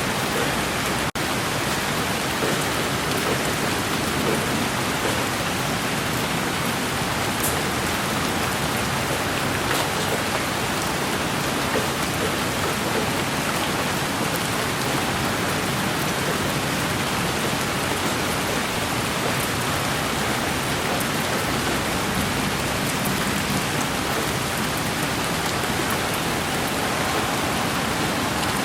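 Steady rain: a dense, even hiss with scattered drop ticks. The sound cuts out for an instant about a second in.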